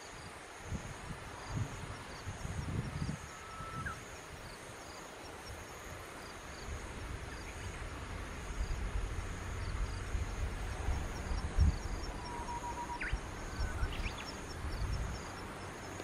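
Outdoor ambience of a steady high insect drone with faint, evenly repeated chirps over it. Under it run low, uneven rumbling and a soft thump. A few faint, short whistles come about four seconds in and again late on.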